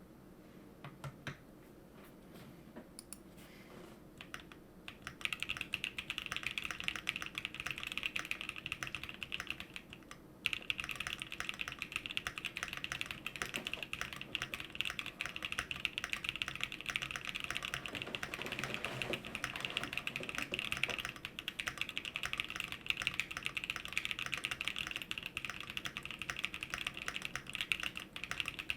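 Custom Fox Lab Leaf 65 mechanical keyboard with Gazzew Boba LT switches on an aluminium plate, fully foamed with a PE foam mod, being typed on. A few scattered keystrokes give way, about five seconds in, to fast continuous typing. There is a brief pause around ten seconds, then steady typing again.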